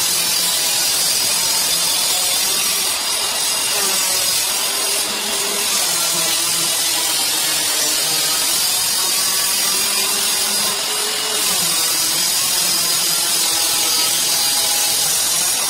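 Handheld electric marble cutter running steadily as its blade saws along a straight-edge through a marble floor slab, a continuous harsh, high-pitched cutting noise.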